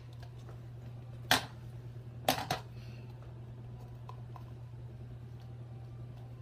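Hard plastic clicks and knocks as a Power Rangers Super Samurai toy belt buckle is handled and fastened on: one sharp click about a second in, a quick double click a second later, then a few faint ticks, over a steady low hum.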